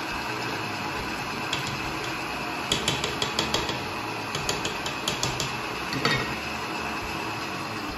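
Electric stand mixer running steadily while mixing a thick batter. Two runs of quick metallic clinks come about three and about four and a half seconds in, with one more knock near six seconds.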